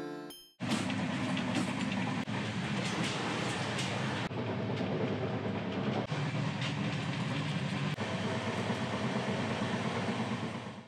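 Inside an Indian Railways 3AC sleeper coach, the train is running with a steady low rumble and rattle and a few sharp clicks. A music track fades out at the very start.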